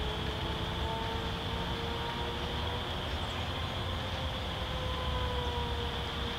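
Dry grass burning in a large running fire: a steady rushing noise with a low rumble, and a faint hum that drifts slightly in pitch beneath it.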